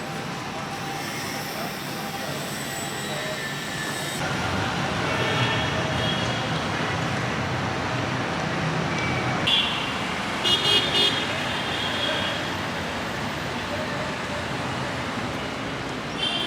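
Street traffic noise with vehicle horns: a short toot about nine and a half seconds in, three quick toots a second later, and another near the end.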